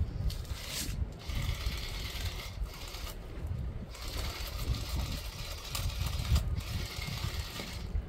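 Outdoor ambience: a fluttering low rumble of wind on the microphone, with a high hiss that comes and goes every second or two.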